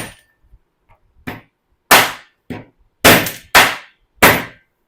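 Hammer blows on a thin screwdriver used as a drift, knocking out the riveted pivot pin of a Hero Splendor BS6 timing chain tensioner blade. About six sharp metal strikes at uneven intervals, four of them hard.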